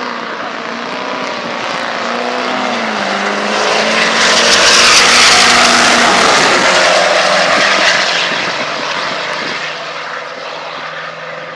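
Two diesel pickup trucks racing down a drag strip at full throttle, their engine notes rising in steps through the gears. The sound swells to its loudest as they pass, then fades as they run away down the track.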